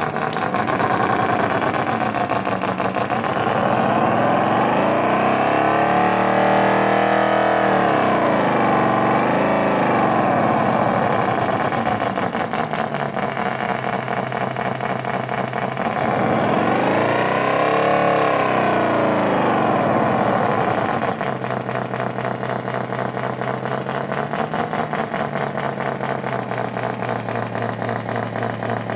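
Electronic engine sound-effect circuit for a battery forklift, playing a simulated engine through a speaker. The revs rise and fall smoothly several times, then settle to a steady idle about two-thirds of the way in.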